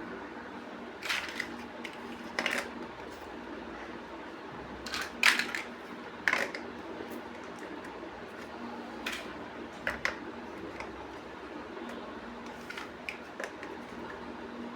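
Plastic building bricks clicking and clacking as pieces are handled and pressed together: a string of irregular sharp clicks, the loudest about five seconds in, over a steady low hum.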